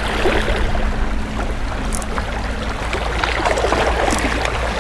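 Small waves washing against the shore in a steady wash, with wind rumbling on the microphone and a few faint clicks.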